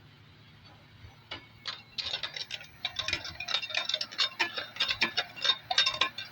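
A quick, irregular run of sharp metallic taps, several a second, each with a short ringing tone, growing louder toward the end.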